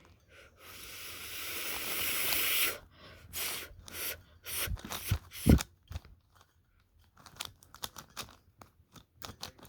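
A hiss of noise that swells for about two seconds, then a run of quick, irregular plastic clicks and clacks as the faces of a Megaminx puzzle are turned.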